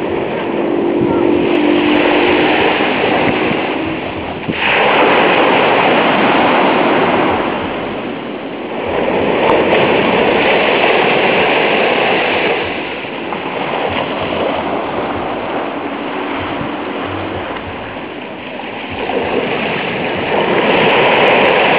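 Small sea waves breaking and washing up a sandy beach in slow swells of surf noise a few seconds apart, one breaking sharply about four seconds in.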